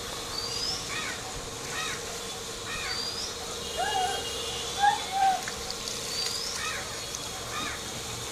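Birds calling repeatedly: short chirps about once a second, with a few louder, lower calls around the middle, over a steady hum.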